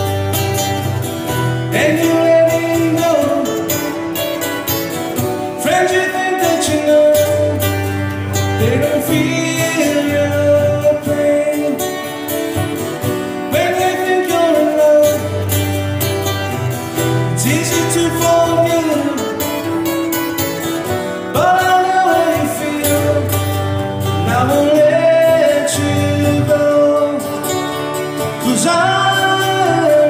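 Acoustic guitar strumming chords while a singer carries a melody in phrases every few seconds: a live acoustic song.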